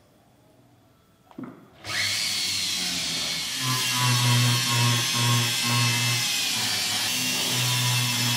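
A jeweller's rotary tool starts up about two seconds in, its whine rising as it gets up to speed, then runs steadily as a small burr cuts into a silver bar. The cutting noise swells and eases as the burr bites into the metal.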